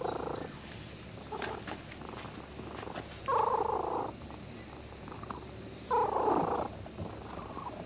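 Domestic cat purring while being stroked, the purr swelling with each breath, loudest twice, about three and six seconds in.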